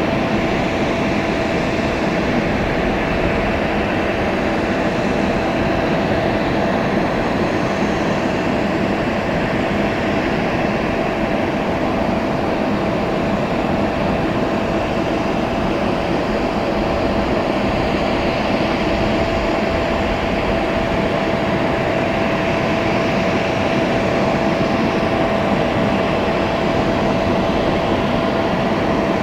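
Steady, unchanging drone of a parked Boeing 767 airliner's running machinery, with a constant whine running through it.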